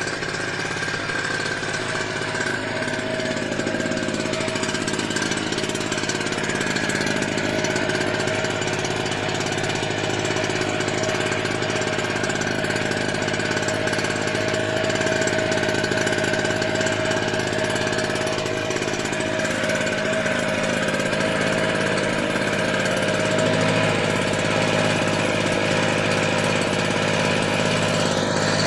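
Small portable generator's engine running steadily, having finally started after being hard to start.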